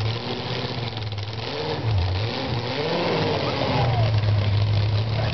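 Chevy small-block V8 of a mud truck running. It revs up and back down through the middle, then settles to a steady idle about four seconds in.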